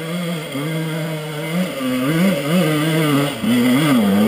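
Off-road dirt bike engines: one idling steadily, then from about two seconds in an engine revving up and down repeatedly and getting louder, as a bike is ridden up a steep dirt climb.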